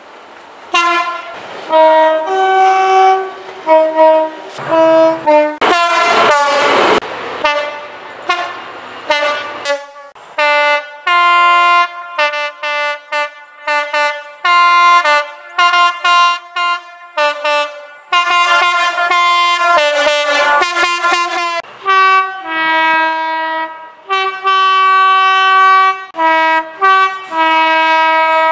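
Diesel freight locomotive two-tone horns sounding over and over, in short and long blasts that alternate between a high and a low note; several notes are held for a second or two. About six seconds in there is a loud rush of noise from a passing train.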